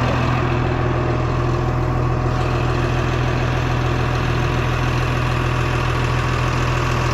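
Bulldozer's diesel engine running steadily with a low, even hum.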